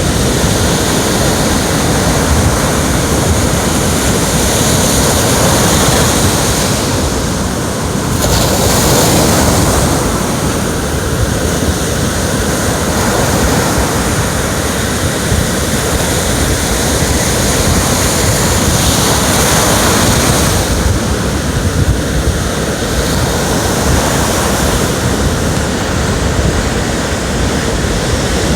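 Ocean waves breaking and washing on the shore, a steady loud rush that swells and eases every few seconds, with wind buffeting the microphone.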